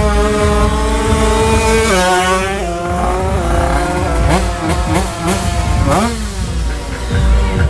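Drag-racing motorcycle engines at full throttle, revving high and accelerating hard, the pitch dropping in steps at upshifts about two and three seconds in. Later, more engine notes rise and fall in pitch as further bikes run.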